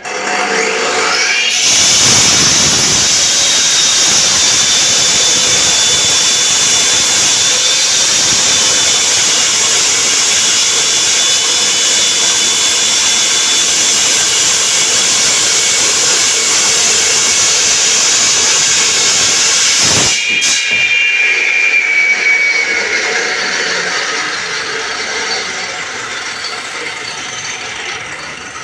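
Diamond-blade concrete saw cutting a reinforced concrete slab: it spins up with a rising whine over the first two seconds, then runs loud and steady with a grinding hiss. About twenty seconds in it breaks off sharply, and its whine slowly falls and fades as it winds down.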